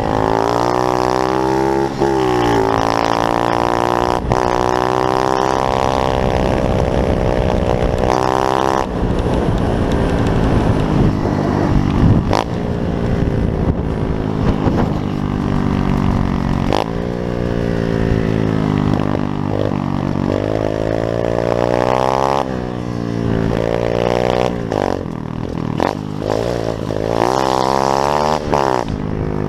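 Pit bike engine revving up through the gears, its pitch climbing and then dropping sharply at each shift, with a steadier stretch of running in the middle.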